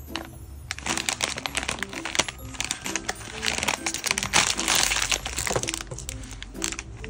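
Plastic snack pouch crinkling and crackling as fingers pull and tear it open, heaviest a little past the middle. Background music plays under it.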